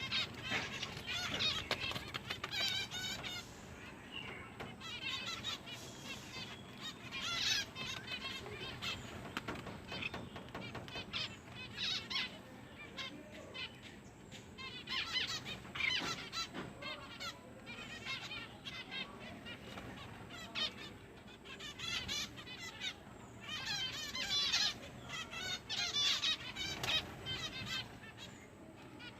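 Small pet bird chirping and warbling in repeated bursts of quick, wavering high notes.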